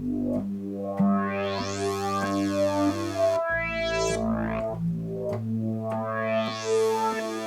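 Roland JX-3P analog polysynth (Kiwi-3P upgrade) playing sustained chords over a held bass note on a filter-sweep patch. Three times the filter opens and the tone brightens in a rising sweep.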